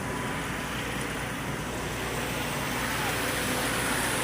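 Heavy vehicle engine running steadily, growing a little louder toward the end.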